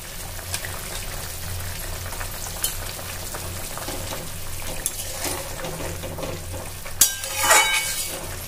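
Thick curry bubbling in a metal kadai while a spatula stirs it, with small scrapes of the spatula on the pan. About seven seconds in, a sharp knock and a louder scrape of the spatula against the pan.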